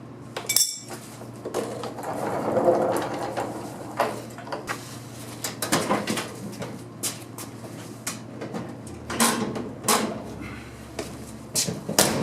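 Irregular clicks, clunks and knocks as the parking brake of a squarebody Chevrolet Suburban is set, over a steady low hum.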